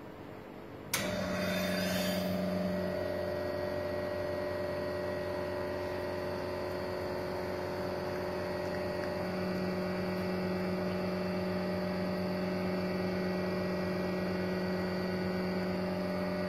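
Welhome 510 two-group espresso machine pumping water through the coffee while brewing espresso shots: a steady electric hum that switches on suddenly about a second in with a brief hiss.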